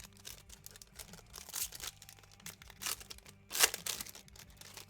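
Trading-card packaging crinkling and tearing as a pack is opened by hand, with many small crackles and two louder rustling tears, the first about a second and a half in and the second, the loudest, about three and a half seconds in.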